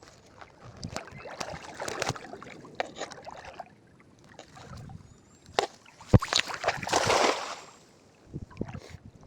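Small boat on the water: bursts of splashing with sharp knocks against the hull, the loudest knock about six seconds in, just before the longest splash.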